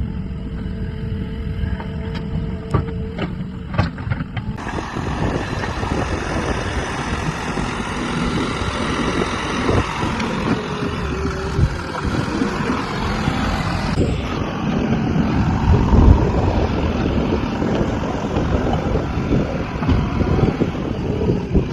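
JCB 3DX backhoe loader's diesel engine running under load, with wind noise on the microphone. The sound changes abruptly about four and a half seconds in and again around fourteen seconds in.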